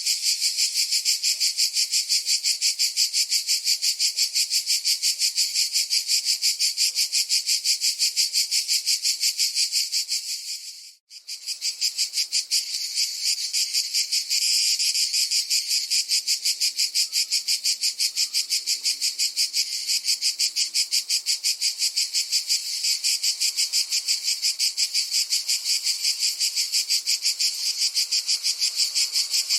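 Cicada chorus: a loud, high, continuous buzz made of rapid pulses. It breaks off for a moment about eleven seconds in and then carries on.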